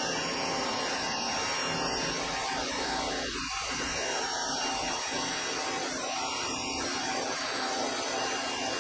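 Suyncll electric pressure washer running steadily under full flow: a constant motor and pump hum under the hiss of water jetting from the 25-degree nozzle into a bucket.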